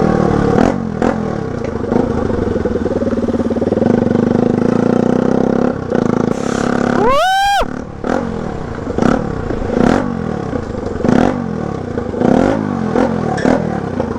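Motorcycle running with its silencer removed, a loud open exhaust note, steady at first and then rising and falling repeatedly as the throttle is worked. Just past halfway a short high cry rises and falls once over the engine.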